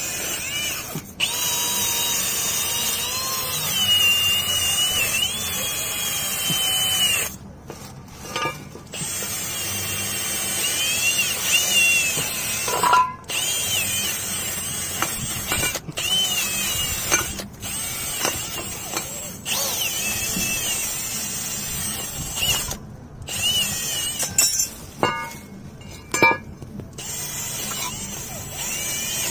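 Cordless drill spinning a wire wheel brush against a Hummer H2 front brake caliper bracket, scrubbing rust from where the brake pads slide. The motor's whine wavers up and down as it loads, and it stops briefly a few times between runs.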